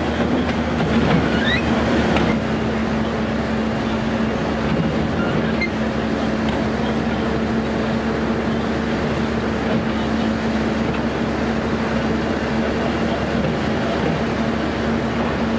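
Sentinel 0-6-0 diesel shunter's engine running steadily under power, a constant drone over the rumble of the train rolling along the track.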